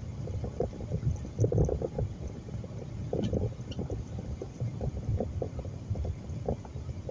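Road and tyre noise heard inside a car driving on a snowy highway: a steady low rumble with uneven knocks and patter.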